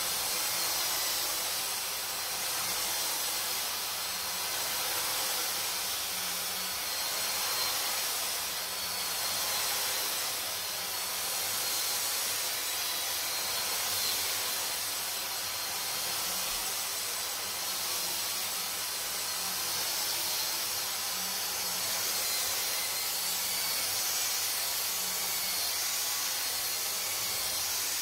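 Dyson DC44 cordless stick vacuum running on carpet: a steady airy rush with a thin high motor whine, swelling slightly every couple of seconds.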